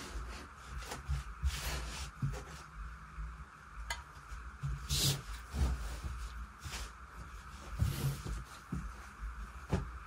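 Tailor's scissors cutting through saree blouse fabric, with scattered scraping snips, cloth rustling and soft knocks on the cutting table as the sleeve pieces are cut out.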